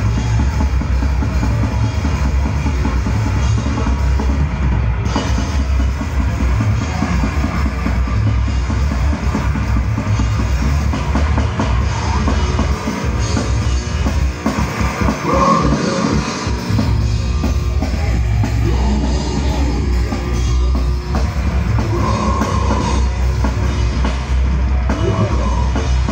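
Metal band playing live through a PA: heavily distorted guitars over rapid bass-drum hits from a drum kit. About halfway through, the bass drum drops out for a few seconds, then the rapid pattern returns.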